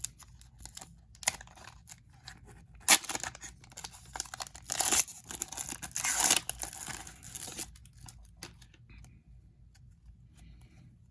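A plastic hockey card pack wrapper being torn open and crinkled in fits and starts, with the loudest rips about three, five and six seconds in, then dying away to light handling.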